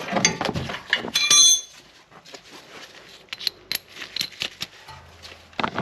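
Metal hand tools and suspension hardware clinking and knocking: a series of light clicks, with one ringing metallic clink about a second in.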